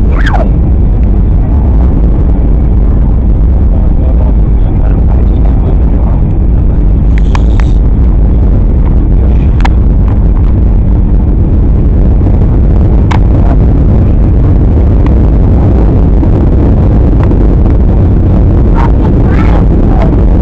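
Steady low roar of jet airliner cabin noise, the engines and rushing air heard from inside the cabin, with a few faint clicks.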